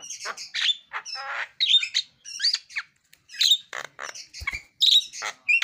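Javan myna singing in full voice: a fast, varied string of harsh squawks, chirps and clear whistled notes that bend up and down, a song built from many mimicked sounds.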